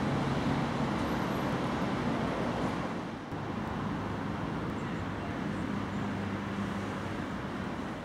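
Steady road-traffic noise with a low engine hum, dipping briefly about three seconds in.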